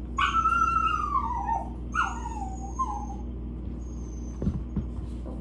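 A dog whining twice, each whine falling in pitch: the first lasts about a second and a half, the second is shorter. A couple of soft knocks follow near the end.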